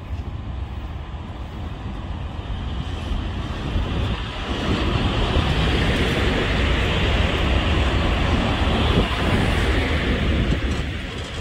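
ET22 electric locomotive passing slowly close by. Its running noise swells about four seconds in as it draws level and eases off near the end.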